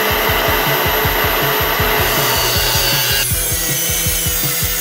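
Cordless angle grinder with a cut-off disc cutting through flat steel bar: a steady grinding hiss with a thin high whine. About three seconds in, the whine drops out and the sound of the cut changes.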